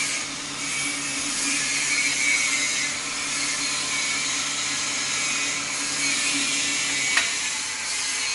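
Automatic wood-turning lathe running and cutting a spinning wooden handle: a steady whirring hum with the hiss of the cutters shaving the wood. About seven seconds in there is one sharp click, after which the lower hum stops.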